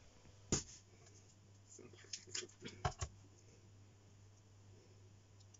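A few light clicks and knocks of things being handled on a kitchen counter, one about half a second in and a small cluster around two to three seconds in, over a faint steady hum.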